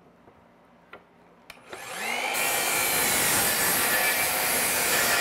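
Worx sliding miter saw switched on after a couple of small clicks, about a second and a half in. Its motor whines up to speed and then runs loud and steady as the blade crosscuts a pine board.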